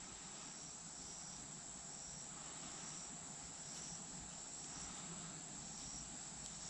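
Faint chorus of insects: a steady high-pitched drone with a second, slightly lower chirp repeating a bit more than once a second.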